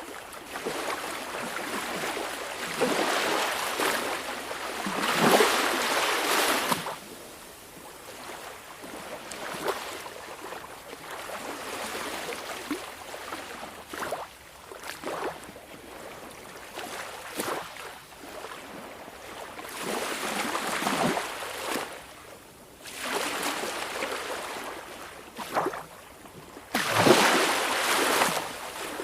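Small sea waves washing in on the shore in uneven surges, each a rush of water that swells and fades over a few seconds, with short splashes in between. The biggest wave comes near the end.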